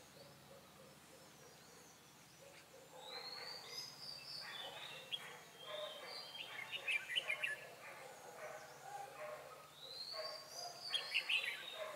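Red-whiskered bulbul singing: three spells of quick, rising and falling whistled phrases, starting about three seconds in, the last one the loudest.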